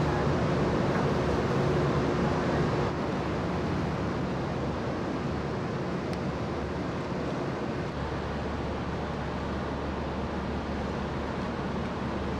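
Steady low hum and drone of a large car ferry's engines and machinery during berthing. The level dips slightly about three seconds in, and a deeper rumble comes in about eight seconds in.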